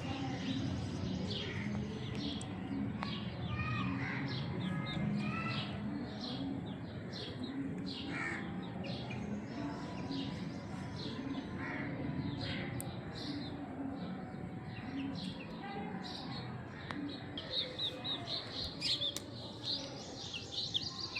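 Small birds chirping repeatedly in many short, separate calls, over a steady low background murmur.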